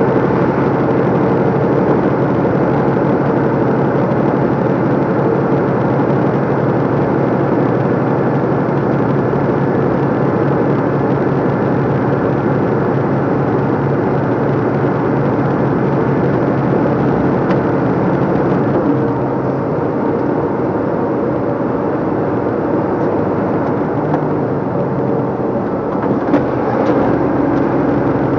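DAF LF55 truck's diesel engine running steadily under way, with road noise, heard from inside the cab. The engine note eases a little about two-thirds of the way through.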